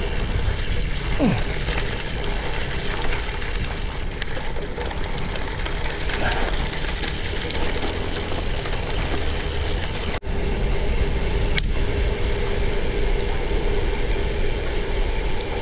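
Giant XTC mountain bike riding over a rough road: tyres crackling over loose stones and the bike rattling, with a heavy low rumble throughout. The sound drops out briefly about ten seconds in.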